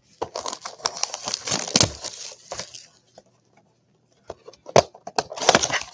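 Plastic shrink-wrap being torn and crumpled off a cardboard box of trading cards: a stretch of crinkling and tearing, a pause, a few sharp clicks, then more crinkling near the end.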